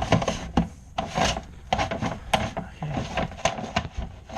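Dryer vent cleaning brush on flexible rods, turned by hand, scraping and rubbing inside a lint-clogged vent duct, with irregular scratchy strokes and small knocks.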